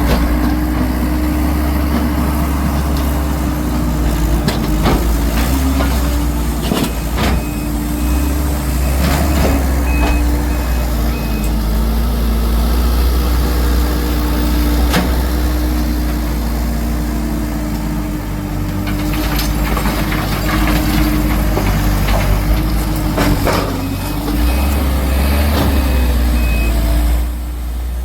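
Heavy diesel work vehicle running steadily amid debris clearing, with scattered metallic clanks and knocks. A backup alarm beeps in two stretches, once about a quarter of the way in and again near the end.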